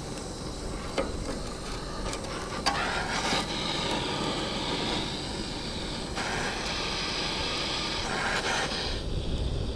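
Handheld butane gas torch aimed at kindling: a click, then the steady hiss of its flame starting about three seconds in, breaking off for a moment about six seconds in and stopping near the end.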